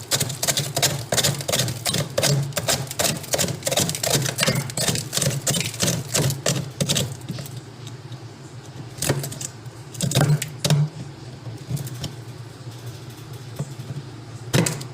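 Rapid clicking and knocking of a tool chipping built-up ice out of a fridge freezer, dense for about seven seconds and then only a few scattered knocks, over a steady low hum.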